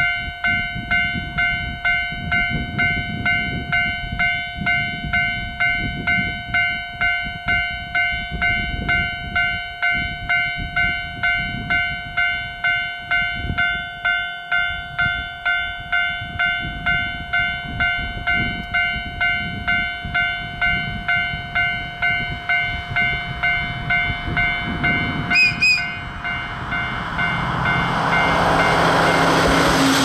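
Railway level crossing warning bell ringing steadily at about one and a half strokes a second as a JR Freight DF200 diesel locomotive approaches. A little before the end the locomotive gives a short, high whistle blast. The diesel engine and the rolling container wagons then grow loud as the train passes close.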